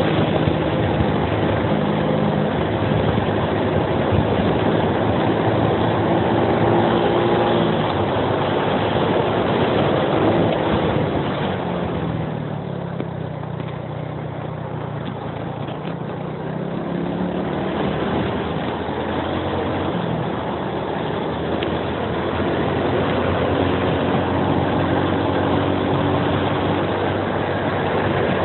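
Suzuki Axelo 125 underbone's single-cylinder four-stroke engine running under load on a climb, with wind and road noise over it. About twelve seconds in the revs drop and it goes quieter for a few seconds, then the engine pulls back up.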